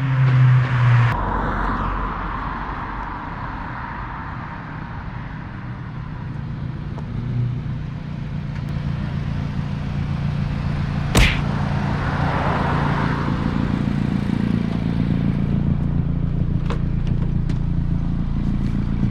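A car engine running: a pitched engine note drops away about a second in, then a steady low drone continues, with one sharp click about eleven seconds in.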